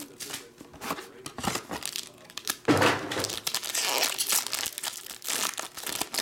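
Foil trading-card pack crinkling and being torn open by hand, with irregular rustles and the loudest tearing burst starting a little under three seconds in.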